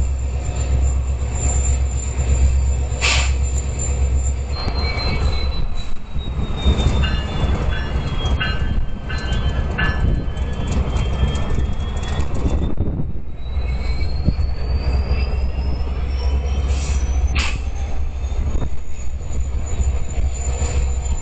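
Canadian National freight train rolling slowly, with a steady low rumble and a long high wheel squeal whose pitch slowly dips and then climbs again. Two short, sharp squeals cut in, one near the start and one near the end.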